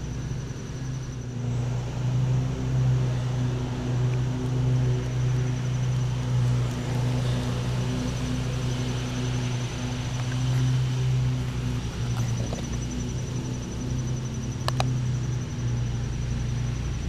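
An engine runs steadily with a low hum that swells and eases slightly in loudness. A single sharp click comes near the end.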